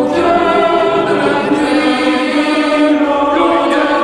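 Music: the intro of a slowed, reverb-heavy hip-hop track, with long held sung notes like a choir and no rap yet.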